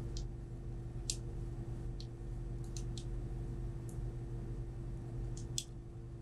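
Light, irregular clicks and ticks of a hex key and screw working against 3D-printed plastic rover parts, the sharpest a little before the end, over a steady background hum.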